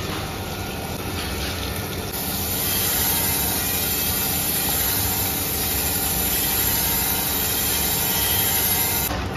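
Crankshaft grinder's abrasive wheel grinding a rod journal of a spinning crankshaft under flowing coolant: a steady machine hum with a loud grinding hiss that comes in about two seconds in and stops shortly before the end.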